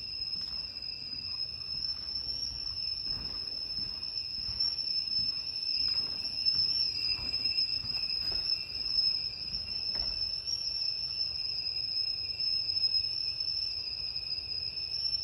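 Kettle whistling at the boil: one continuous high-pitched whistle, wavering slightly in pitch.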